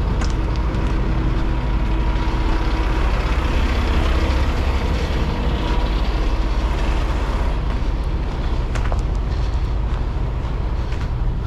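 Heavy diesel engine running steadily, a continuous low rumble.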